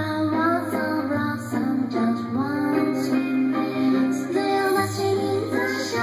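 A pop song with a high female, possibly synthesized, singing voice over guitar and a steady bass line, played through an AudioBox Thor 7000 5.1 computer speaker system as a sound test.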